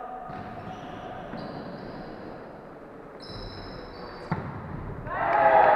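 Volleyball play: a single sharp smack of the ball a little past four seconds in, followed by players shouting loudly near the end.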